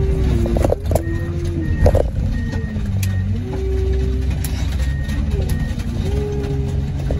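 Heavy junkyard machinery running under load at a car crusher, its engine pitch rising and falling, with a few sharp metal clanks. A reversing alarm beeps on and off.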